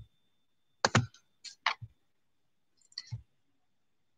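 A handful of sharp clicks and knocks, several in quick pairs, from hands tapping and handling the recording device.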